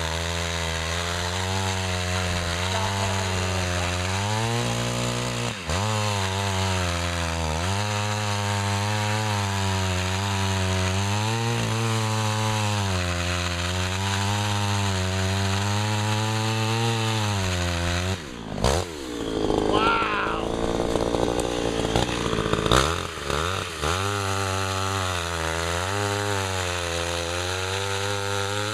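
Early-1970s Sears Craftsman 3.75 chainsaw's two-stroke engine running while cutting wood, its pitch sagging and recovering as the chain bites. From about 18 s in the note breaks up for several seconds into uneven louder revs, then settles back to a steady run.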